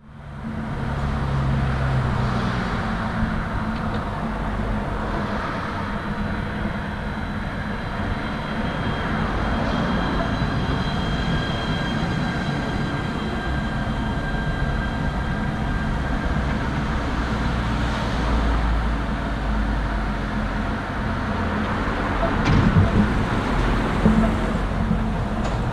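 Steady hum and faint high whines of an Alstom Citadis 302 tram standing at a stop, with a few knocks near the end.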